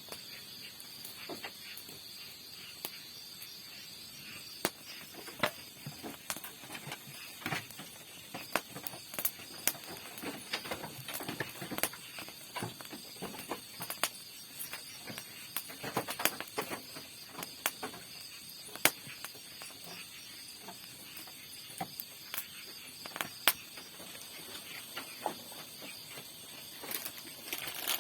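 Steady high chirring of insects, likely crickets, with frequent irregular clicks and rustles of something being handled close by.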